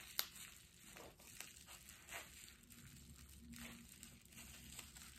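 Faint, scattered crinkling and rustling of plastic wrapping being pulled off a small item by hand.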